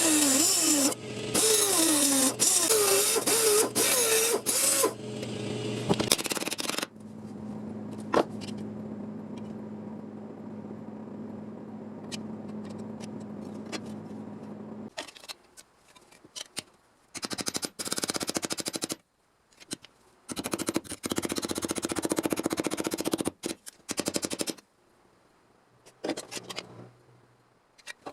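Power tools working sheet metal. For the first few seconds a tool runs hard with a wavering pitch, then a motor hums steadily for several seconds, then come several bursts of rapid crackling.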